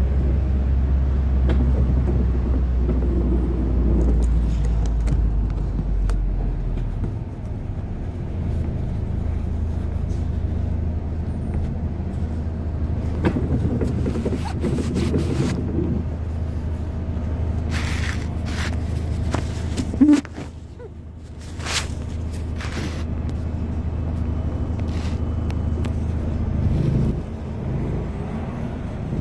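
Arriva London bus engine running with a steady low drone, heard inside the passenger cabin; a heavier rumble in the first seven seconds eases off. Clicks and rattles come through now and then, and a sharp knock about twenty seconds in is followed by a brief drop in the noise.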